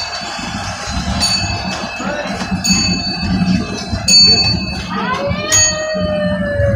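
Bell struck repeatedly, each strike ringing on, over the steady low rumble of a moving narrow-gauge train. About five seconds in, a long pitched tone starts and slowly slides down.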